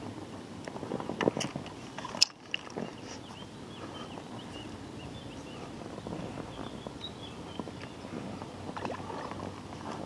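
Water lapping and sloshing against an inflatable boat while a hooked carp is played through weed close by, with a few knocks on the boat and one sharp click about two seconds in.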